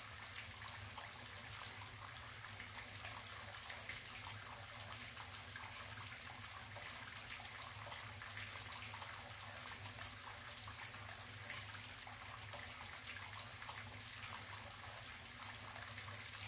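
Faint, steady running water, a gentle trickle, with a low steady hum underneath.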